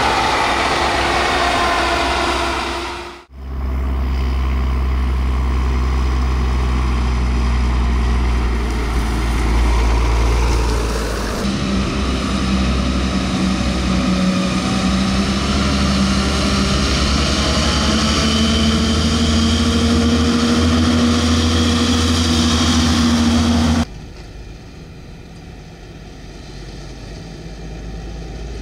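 Heavy farm diesel machinery running, in several shots: a John Deere tractor pushing whole-crop silage on the clamp, then a John Deere self-propelled forage harvester running under load as it chops whole-crop cereal and blows it into a trailer, with a steady engine tone rising slightly in pitch. Near the end it turns quieter: a Fendt tractor pulling a silage trailer across the stubble.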